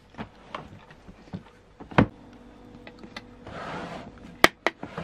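A drawer of a wooden chest of drawers being handled: scattered light knocks and clicks, with one louder knock about two seconds in. Then the drawer scrapes along its wooden runners for under a second, followed by two sharp knocks.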